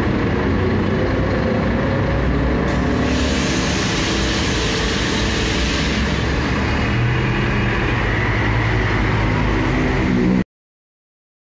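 Scania K310IB bus engine running, heard from inside the cabin as the bus pulls away from a stop, with its drone rising in pitch over the last few seconds. A hiss comes in about three seconds in and fades a few seconds later. The sound cuts off suddenly near the end.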